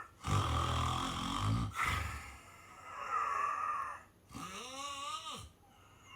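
Snoring in deep sleep: a loud, low, rattling snore, then a breathy exhale, then a short pitched sigh that rises and falls, a little past the halfway point.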